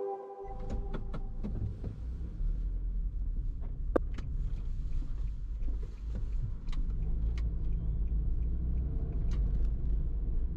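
Car driving: a steady low rumble of road and engine noise, with scattered sharp clicks and a louder knock about four seconds in.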